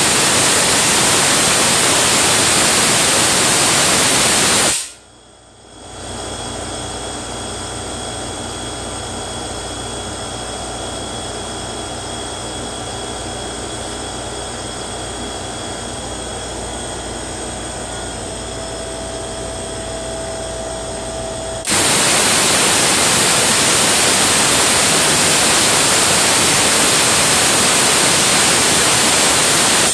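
Spark-gap Tesla coil firing, its arcs making a loud, even buzz of sparks. It stops about five seconds in, leaving a much quieter steady hum with faint tones, and a higher whine joins near 18 seconds. The coil fires again about 22 seconds in and cuts off at the end.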